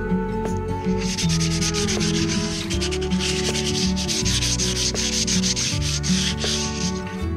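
A hand-held abrasive pad scrubbed rapidly back and forth over the top of a bare skateboard deck, a fast rasping sanding of the surface before new grip tape goes on. It starts about a second in and stops shortly before the end.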